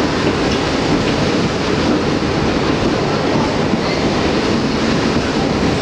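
An R62A New York City subway car in motion, heard from inside the car: a steady rumble of wheels on rail and running noise.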